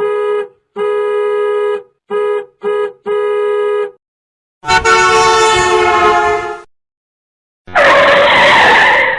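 Car horn honking five times in a pattern: short, long, two quick taps, then long. Then a longer horn-like blast whose upper tones slide slightly, and near the end a harsh, noisy blast of about a second and a half.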